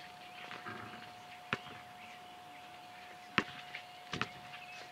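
Basketball bouncing on an outdoor court: a few separate sharp thuds, the loudest about three and a half seconds in with a quick pair just after, over a faint steady hum.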